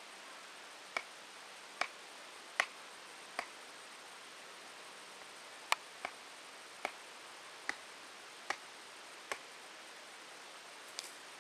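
A hand-held stone knocking on the top of a wooden stake to drive it into the ground: about ten short, sharp knocks a little under one a second, with a short pause near the middle.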